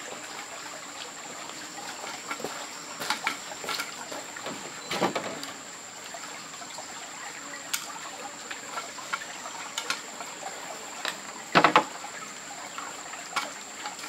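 Forest background of trickling water and a steady high-pitched whine, with scattered clicks and knocks as someone moves about and handles things. The loudest sound is a quick pair of sharp knocks a little over eleven seconds in.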